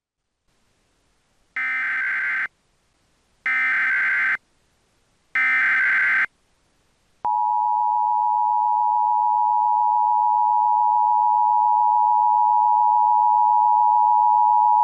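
Emergency Alert System tones: three identical bursts of warbling digital header data, each just under a second long and about two seconds apart. About a second after the last burst, the steady two-tone EAS attention signal starts and holds. Together they mark the start of a new emergency alert broadcast.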